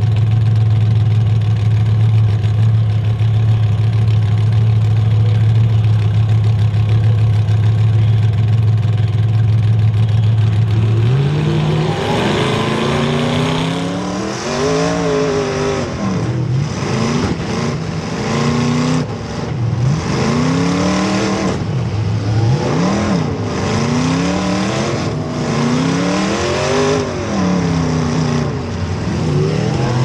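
Demolition derby car engines. For about the first ten seconds an engine runs loud and steady at one pitch. Then engines rev up and down over and over, in sweeping rises and falls about every two seconds, as the cars accelerate around the arena.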